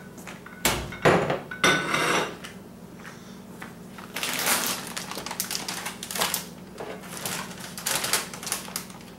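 A few knocks of dishes and containers on a kitchen counter, then a plastic chip bag crinkling in a dense, crackly run as it is handled.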